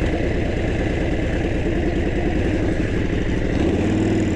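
Harley-Davidson V-twin motorcycle engine running at low speed, heard through a lavalier mic inside the rider's helmet; its note changes near the end.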